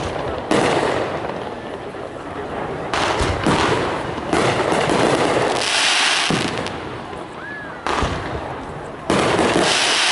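Fireworks display: aerial shells bursting in a series of booms, each trailing off in a rolling rumble. Crackling stars hiss after bursts about six seconds in and near the end.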